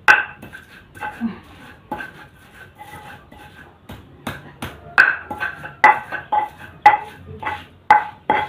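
Large mixing bowl knocked and scraped as peanut peyek batter is mixed in it by hand: irregular sharp clinks, each with a short ringing tone, coming faster in the second half.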